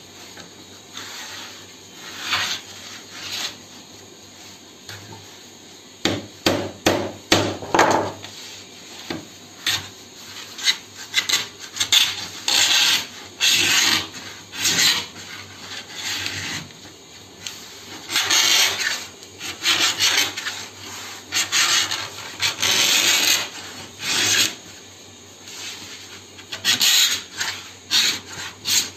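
Sewing-machine needles in a homemade circle-cutting jig scraping round through a sheet of 0.8 mm sunmica laminate, a run of irregular rasping strokes that come in louder clusters with quieter pauses between.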